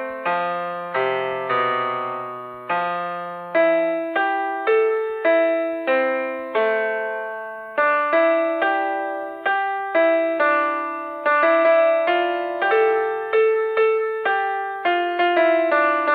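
Background piano music: a gentle melody of struck notes with chords, each note fading before the next, at an even pace of about two notes a second.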